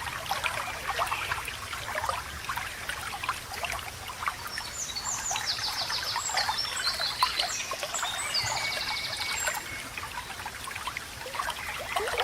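A small stream babbling and trickling steadily. From about five seconds in to about nine and a half, a songbird sings several quick high trills over the water.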